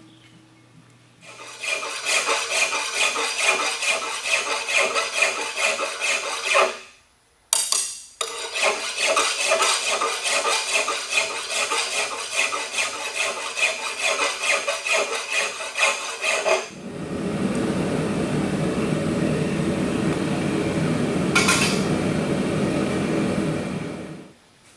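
Hand file rasping on a steel piece clamped in a bench vise, in quick rhythmic strokes, pausing briefly about a quarter of the way in. About two-thirds of the way through, the filing gives way to the steady roar of a two-burner gas forge, with one short sharp click near the end.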